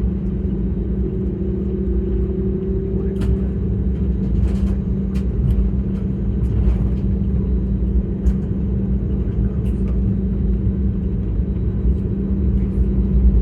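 Steady low cabin rumble of an Airbus A320neo on the ground, with a constant low hum and scattered light clicks and rattles.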